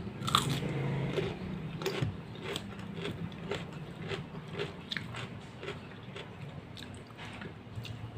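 A person eating chili peppers with sambal, biting and chewing close to the microphone, with short wet mouth clicks about twice a second.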